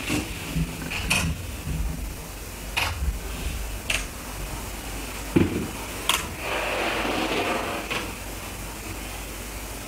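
Room noise: a steady low hum with scattered light clicks and knocks, a dull thump about five seconds in and a brief rustle around seven seconds.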